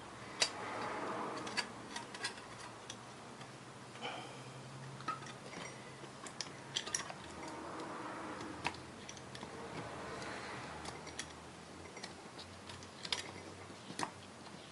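Irregular small metallic clicks and taps of brake pads, shims and retaining pins being worked into a front disc brake caliper of a 1968 MGC, as a fiddly part is coaxed into place.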